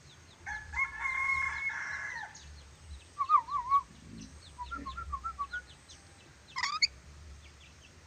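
Pet lorikeet whistling and calling: a long held whistle that drops in pitch at its end, then a quick warbling trill, a run of short chirps, and a brief rising call near the end.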